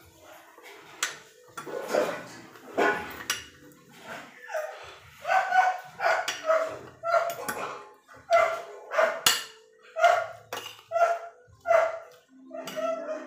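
A dog barking over and over off to the side, a steady string of short barks about twice a second starting a few seconds in.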